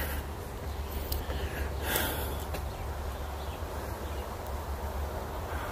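A hiker's breathing while walking uphill, with a couple of audible breaths about two seconds apart over a steady low rumble on the microphone.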